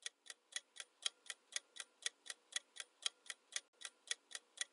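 Clock ticking sound effect for a quiz countdown timer: sharp, even ticks about four a second.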